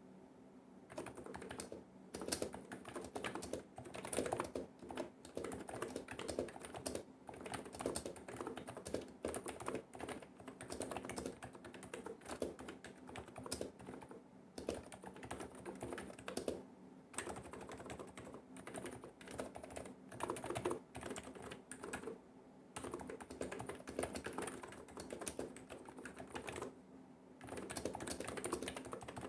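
Typing on an AKBO K965 V2 keyboard with 55 g NIZ switches, Topre-style electrocapacitive clones: a continuous, uneven run of rapid keystrokes broken by a few brief pauses.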